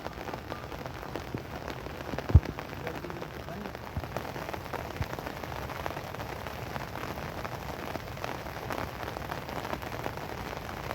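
Steady rain falling, with many individual drops striking close by. A single loud dull thump about two seconds in, and a couple of softer knocks later.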